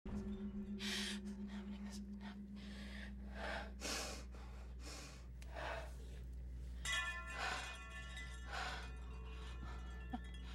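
A frightened woman breathing in shaky, uneven gasps, about a dozen breaths, over a low steady drone of suspense score. A small click sounds near the end.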